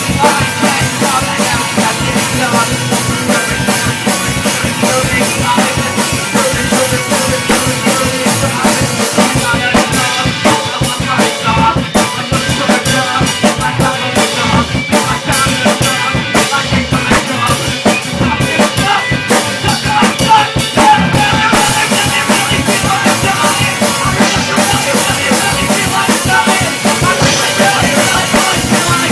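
A band's demo recording playing loud and steady, driven by a full drum kit with bass drum, snare and rimshots. For about ten seconds in the middle the high cymbal wash thins out into separate hits.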